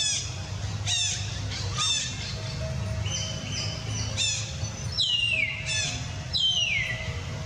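Baby macaque squealing: short, high cries that fall in pitch, about one a second, then two longer cries sliding down in pitch about five seconds in and again a second and a half later.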